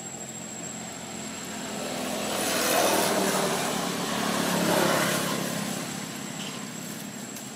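A passing engine: it swells up about two seconds in, is loudest through the middle, and fades away before the end.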